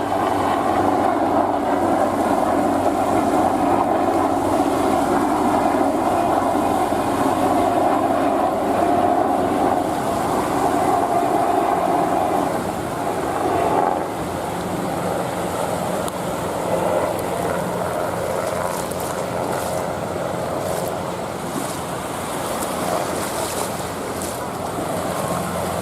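Sea waves washing onto the beach with wind buffeting the microphone: a steady rushing noise that eases a little about halfway through, with faint hissing wash near the end.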